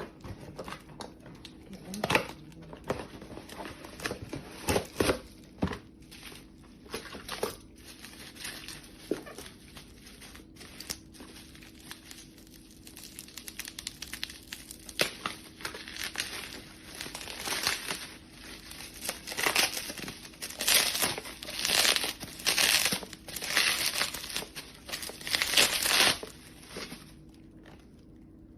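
Packaging crinkling and rustling as a boxed satellite receiver is unpacked, in irregular bursts with occasional tearing sounds, busiest in the last third.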